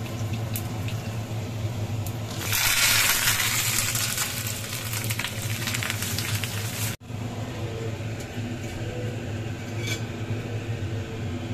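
Hot oil with cumin seeds and dried red chillies sizzling in a small tempering pan. About two and a half seconds in, curry leaves go into the oil and the sizzle flares up into a loud hiss, then eases. It cuts off abruptly about seven seconds in, and a steady low hum runs underneath throughout.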